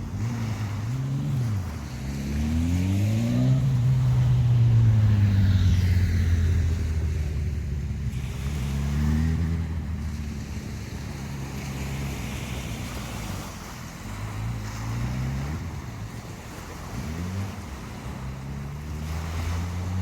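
Engine of a passing motor vehicle, its pitch rising and falling several times as it speeds up, loudest about four to six seconds in, over the steady wash of waves.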